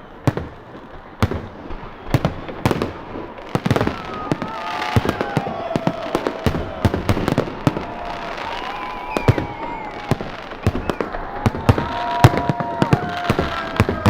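New Year fireworks going off: a rapid, irregular series of sharp bangs, with a dense crackle building up from about four seconds in.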